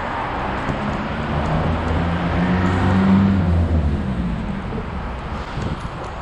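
A motor vehicle's engine passing on the street: a low, steady drone that swells to its loudest about three seconds in and then fades, over a constant background hiss.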